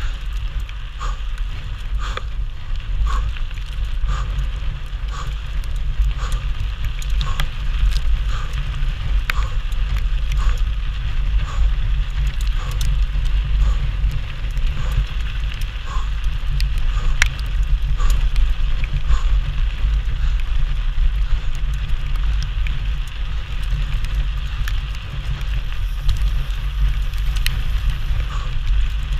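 Mountain bike ridden fast down a dirt and gravel track: tyres crackling over loose stones and the bike rattling, under heavy wind rumble on a GoPro Hero 4 microphone. Light ticks come about once a second throughout.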